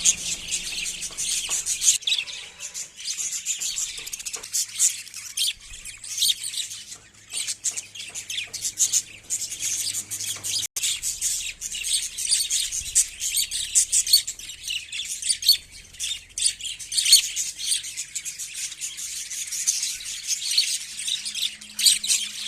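Many small birds chirping together, a dense, continuous chatter of quick high-pitched chirps and tweets overlapping one another.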